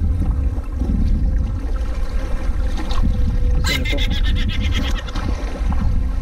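Steady wind rumble on the microphone over lapping water. About halfway through comes a sharp click, then a rapid run of clicks lasting about a second.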